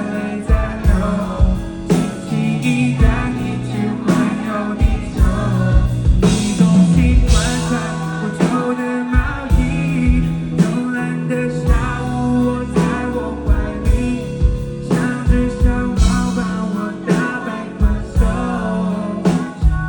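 Live band playing a pop-rock song with a steady drum beat and bass, with a singer's voice carrying the melody over it.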